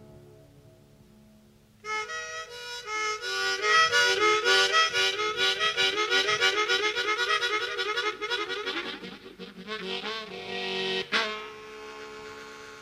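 Live band music: a faint held note fades, then about two seconds in a fast melodic run of rapid notes starts. Near the end it settles into held notes, with a sharp click about eleven seconds in.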